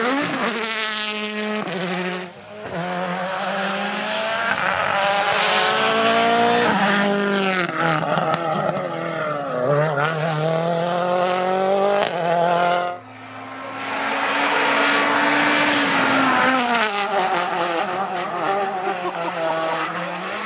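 World Rally cars' engines at full throttle on a stage, pitch climbing through the gears and dropping away as they brake and shift down, with tyre noise underneath. The sound breaks off suddenly about two seconds in and again about thirteen seconds in, as one car's pass gives way to another's.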